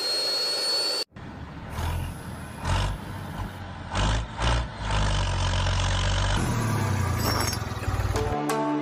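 A motor running steadily with a faint rising whine, cut off abruptly about a second in. Then comes a vehicle engine-like running sound with a low rumble that swells and fades several times, giving way to music near the end.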